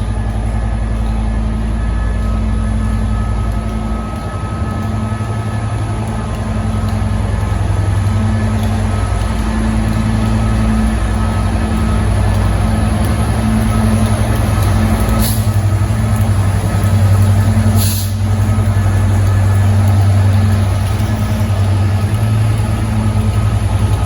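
Class 67 diesel-electric locomotive's two-stroke V12 diesel engine running with a loud, steady low drone and a faint steady whine over it. The drone swells a little in the middle. Two brief sharp sounds come about 15 and 18 seconds in.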